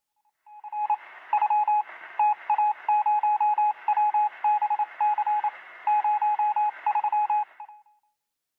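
Morse-code-style beeping: a single steady tone keyed on and off in quick short and longer pulses over a band of radio hiss. It starts about a second in and stops shortly before the end.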